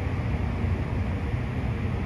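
Steady low rumble with a hiss above it, unchanging throughout: outdoor city background noise.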